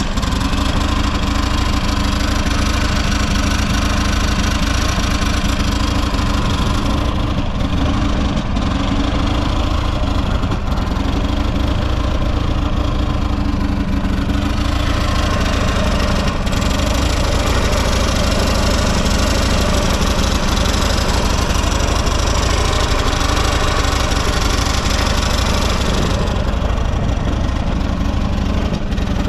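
Buell XB12SS Lightning's air-cooled V-twin engine running steadily at idle, which the seller presents as running well with no abnormal noises.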